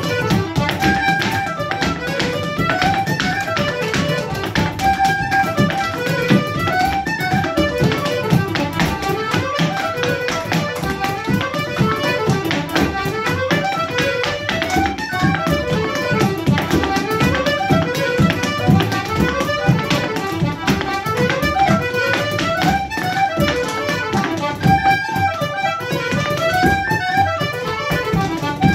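Irish traditional dance tune played on button accordion, fiddle and tin whistles with a bodhrán beating underneath, in fast continuous runs. A dancer's shoes tap steps on wooden floorboards along with the music.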